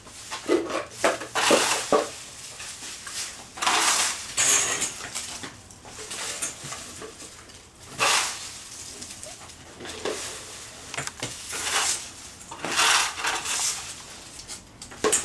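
Dry leaves being swept with a push broom and scraped up with a plastic dustpan on brick paving: repeated rustling, scraping strokes every one to four seconds.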